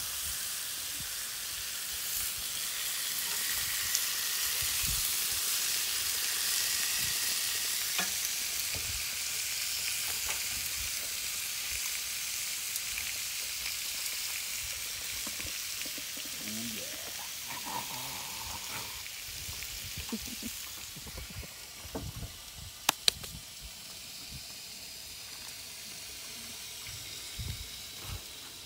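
Pork chops sizzling on the grate of a portable gas grill: a steady frying hiss that is strongest early on and fades slowly. A few sharp clicks come about three-quarters of the way through.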